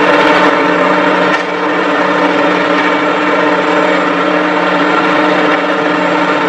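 Diesel engines of heavy forestry machines, a Ponsse harvester and a forwarder, running steadily with an even hum and no change in revs.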